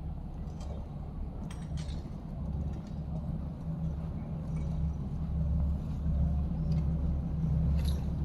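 A low, steady engine rumble from a motor vehicle, growing louder in the second half, with a few faint clicks over it.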